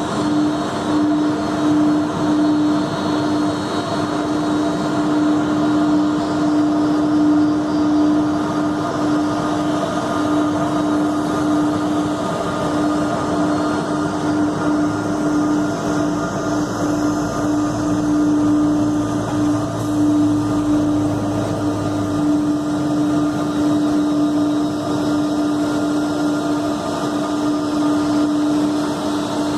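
Airbus A330-223's Pratt & Whitney PW4000 jet engines running steadily, with a constant droning tone over the engine noise. A low rumble joins for several seconds past the middle.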